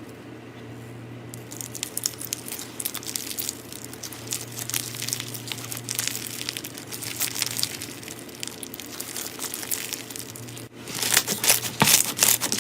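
Slime being squeezed and kneaded by hand, giving a dense stream of small crackles and crinkles. After a brief break near the end, louder, sharper crackling.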